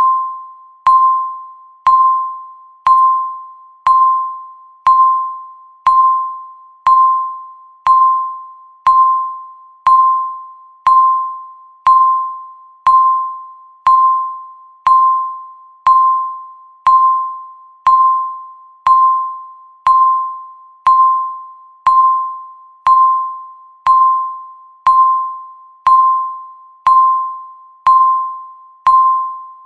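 Countdown timer's tick sound, once every second: each tick is a sharp click with a ringing ping at one pitch that fades out before the next.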